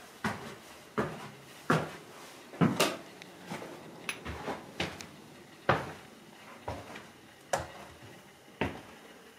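Footsteps walking at about one step a second, each a sharp knock.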